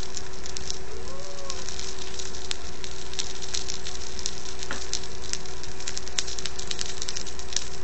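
Food sizzling on a hot plate: a steady hiss with frequent sharp crackling pops, over a constant faint hum.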